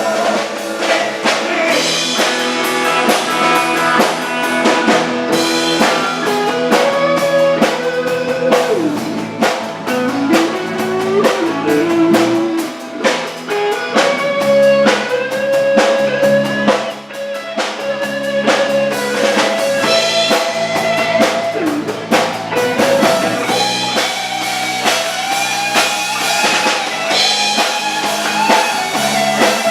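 Live band playing an instrumental passage: a guitar lead line with bending notes over a drum kit and backing instruments.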